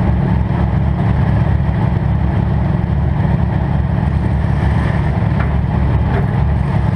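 Demolition derby car's engine idling through open upright header pipes: a loud, steady low rumble.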